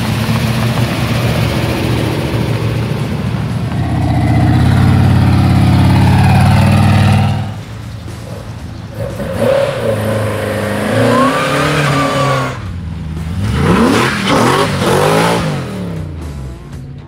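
Engines of several performance vehicles in turn: first a loud, steady engine note for about seven seconds, then, after a cut, cars accelerating with revs rising and falling. The loudest revving comes about two seconds before the end.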